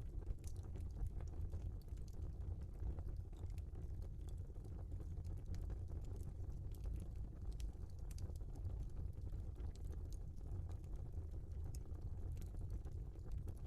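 Wood fire burning in a fireplace: irregular small crackles and pops over a steady low rumble of the flames.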